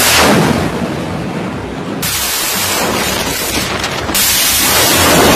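Launch blast of a ship-fired Harpoon Block 1C anti-ship missile: its solid-fuel rocket booster gives out a loud, continuous rushing hiss of exhaust. The noise jumps in level sharply about two and about four seconds in.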